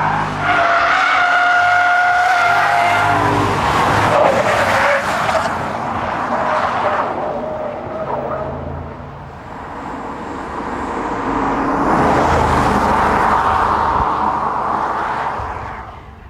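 BMW M5 driven hard, its engine running under load with tyres squealing. A steady high squeal stands out over the first few seconds; then a rushing car noise eases off and swells again.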